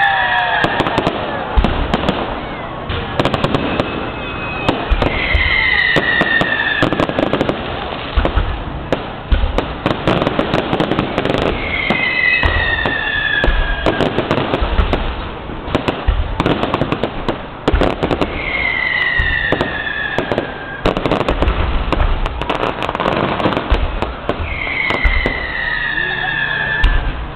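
Fireworks display: a dense, continuous run of bangs and crackles, with a falling whistle about every six to seven seconds.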